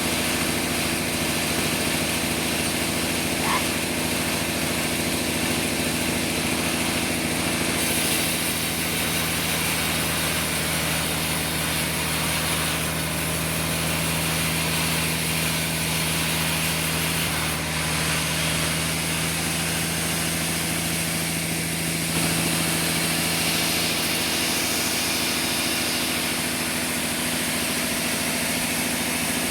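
Sawmill machinery running steadily, a continuous engine-driven drone with a steady hum. A clearer tone holds through the middle stretch.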